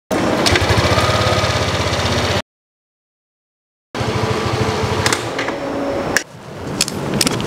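Motorbike engine idling steadily with an even low pulse, cut off abruptly for over a second by dead silence and then running again.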